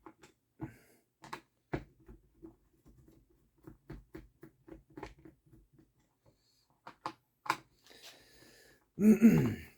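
Scattered small clicks and taps of hard plastic and metal parts being handled as a .50 cal paintball-style marker is taken apart, ending near the end in a louder short creak that falls in pitch.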